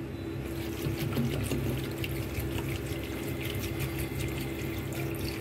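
Water pouring steadily into an aluminium pot of chopped leafy greens, filling it. The pour builds up about half a second in.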